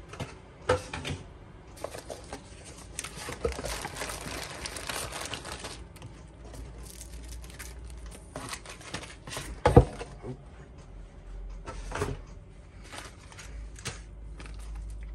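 A model kit being unpacked by hand: cellophane parts bags crinkle and the paper instruction sheet and cardboard box rustle, with a dense stretch of rustling in the first half. Scattered knocks as pieces are moved, the loudest one a little past the middle.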